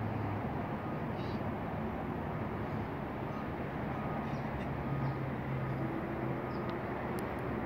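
Steady outdoor background rumble with a faint low hum from distant vehicles or machinery, and a few short, faint high chirps.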